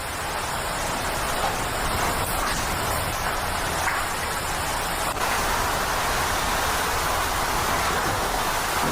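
Steady rush of hurricane-force wind and driving rain.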